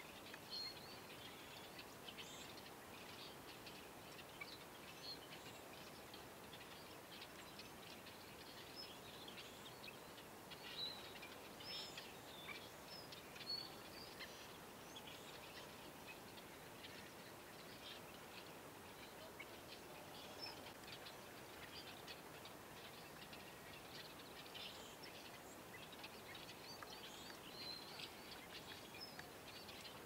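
Faint outdoor ambience: many short, high bird chirps and calls scattered throughout over a low steady hiss, with a few louder ones midway.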